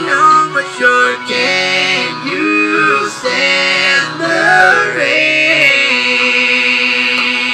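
Several overdubbed talkbox parts sing in harmony, moving through quick chord changes and then holding one long chord through the second half.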